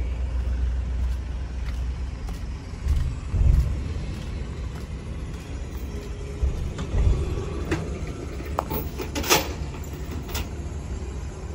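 Truck engine running at idle, a steady low rumble, with a couple of heavy thumps and a sharp clank about nine seconds in.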